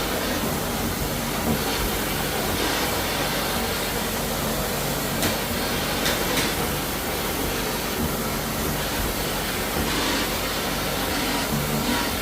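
Floor-cleaning machinery working a travertine floor: a steady, hissing machine noise with a low hum, swelling and easing every few seconds.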